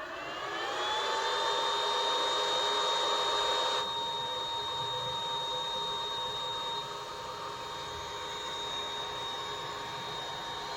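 Electric motor on a variable frequency drive starting up under terminal control (24 V shorted to the forward-run terminal): its whine rises in pitch for about the first second as it ramps to speed, then holds steady over a rushing noise. The sound steps down a little about four seconds in and again about seven seconds in.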